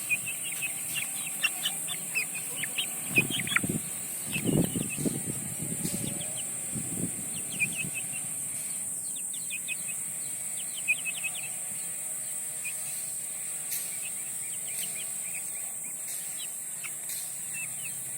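Domestic village chickens calling: many short, high chirps, thick in the first half and thinning out later, with a few lower, louder clucks about three to seven seconds in.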